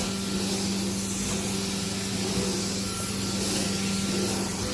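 Hot-water carpet extraction machine running with a steady hum and a constant hiss of suction and spray as the carpet is extracted.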